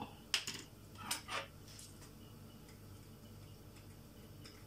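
Small glass jar of seasoned salt being handled and shaken over a soup pot: a few short clicks and rattles within the first second and a half, then faint kitchen room tone with a low steady hum.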